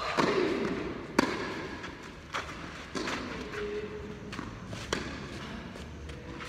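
Tennis balls struck by racquets and bouncing during a rally on a clay court, a series of sharp pops with the loudest about a second in, each echoing in the enclosed hall.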